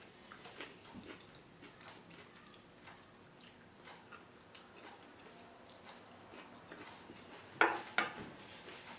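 Close-up eating sounds: soft chewing and small clicks of a fork against a plastic-wrapped wooden board. Two sharper clicks come near the end and are the loudest sounds.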